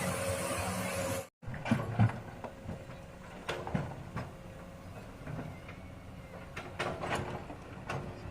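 Komatsu excavator's diesel engine running steadily, cut off abruptly about a second in. After that comes a quieter engine hum with scattered sharp knocks and clatters of stone being handled.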